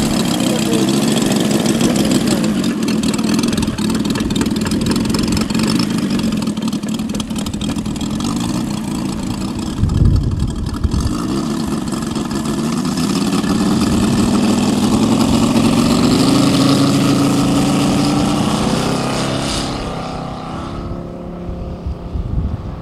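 Engine of a one-third-scale radio-controlled Mitsubishi A6M Zero model running while it taxis. The engine opens up with a rising pitch for the take-off run, then fades as the plane climbs away near the end.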